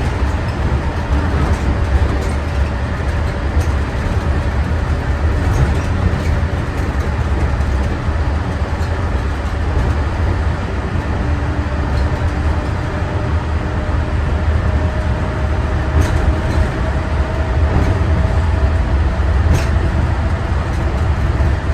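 Bombardier monorail train running, heard from inside the car: a steady low rumble with a faint whine drifting in and out.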